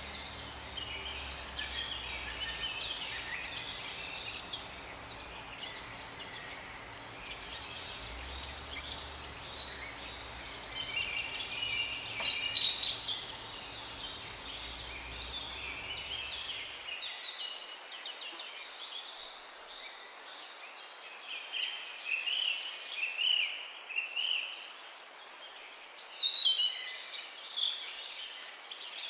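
Several songbirds chirping and twittering at once, short overlapping calls and trills with no pause, over a low background rumble that stops abruptly a little past halfway.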